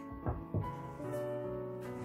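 Soft background piano music, with two wooden knocks about a quarter second apart near the start as a wooden cutting board is lifted and moved.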